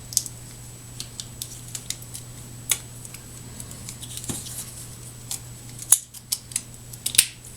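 Small plastic and metal connector parts clicking and tapping as the clamshell housing is fitted over a field-terminated HDMI connector, with a few sharper clicks near the end. A steady low hum runs underneath.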